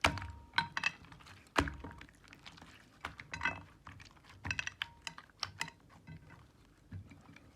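Jelly slime being squished and poked by hand, making irregular sticky clicks and small crackly pops.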